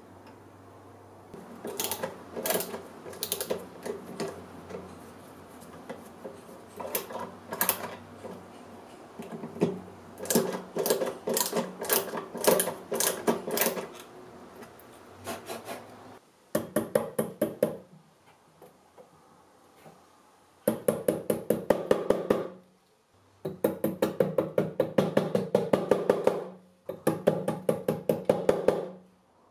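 Small metal clicks and taps as a brass keyhole escutcheon is fitted and screwed onto a painted wooden drawer with a small screwdriver. After the middle come four quick runs of light, rapid hammer taps driving small nails into the drawer's side, with short pauses between them.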